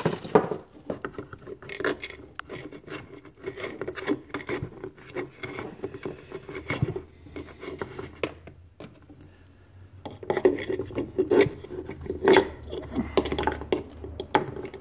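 Handling noise of a power cord being coiled and laid on top of a plywood cabinet: irregular rubbing and scraping with small knocks and clicks, dying down for a moment near the middle before picking up again.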